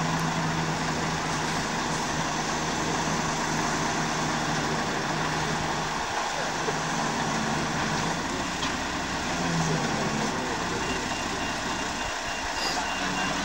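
Heavy vehicle engine running steadily, its low note shifting a little about halfway through.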